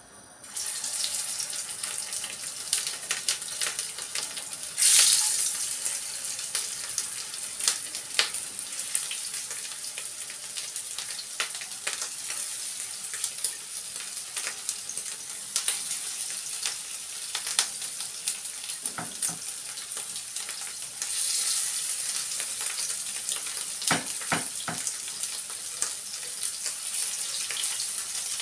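Meat patties (köfte) frying in hot oil in a pan: a steady sizzle with frequent crackling pops of spattering oil. It starts about half a second in and grows louder about five seconds in and again around twenty seconds in as more patties are laid in.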